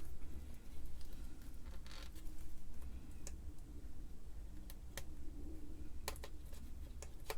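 Scattered small clicks and taps of hand tools working on a circuit board while a tantalum capacitor is pulled out, a few in quick succession near the end, over a low steady hum.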